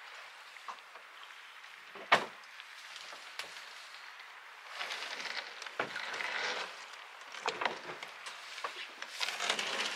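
A sharp knock about two seconds in, then stretches of rustling and scraping with scattered small knocks and clicks, as of gear being handled.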